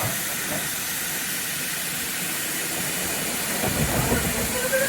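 Steam locomotive hissing steam steadily, with a few low thumps and rumbles for about a second toward the end.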